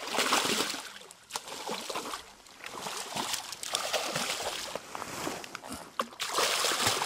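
Hooked silver (coho) salmon thrashing at the water's surface, splashing in irregular bursts.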